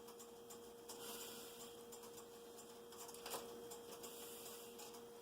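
Faint steady hum with a few light ticks and a brief soft hiss.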